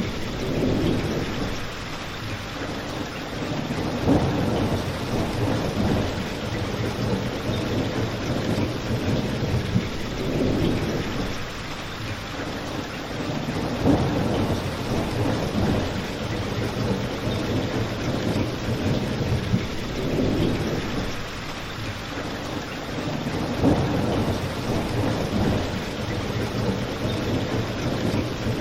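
Steady rain with a crackling fireplace. Low rumbling swells and fades every few seconds, and there are a few sharp pops.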